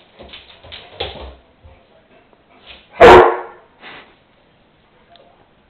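A dog barks once, loud and short, about three seconds in. Before it come light taps and thumps of its paws and claws on the laminate floor as it paws at the bee it has trampled.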